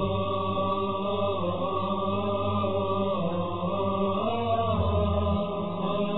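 Mournful Arabic chanted lament: a voice holding long, slowly wavering notes over a steady low drone.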